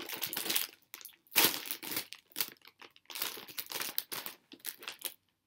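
Plastic snack bag of smoky bacon chips crinkling and rustling in irregular bursts as it is handled and a hand reaches inside for chips, the loudest crackle about one and a half seconds in.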